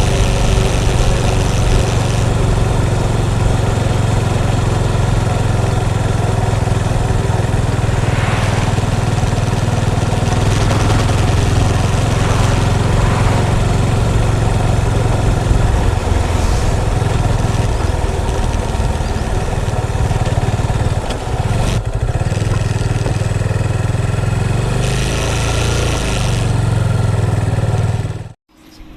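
Motorcycle engine running steadily with a strong low hum, cutting off abruptly near the end.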